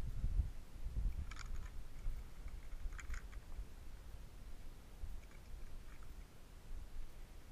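Handling noises from weighing a catch on a digital fish scale: a few short clicks and rustles, two sharper ones a second and a half apart, over a low rumble that fades after the first second.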